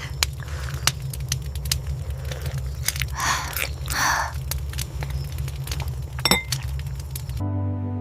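Scattered light clinks and knocks, with a glassy, dish-like quality, over a steady low hum. Two short rushing noises come about three and four seconds in. Soft music comes back near the end.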